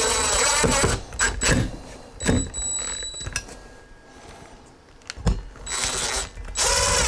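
Cordless impact driver running in two bursts, driving the screws of a metal wall-mount bracket into plastic wall anchors: one run stops about a second in, and a second starts about five and a half seconds in and goes on to near the end. A few knocks come between the two runs.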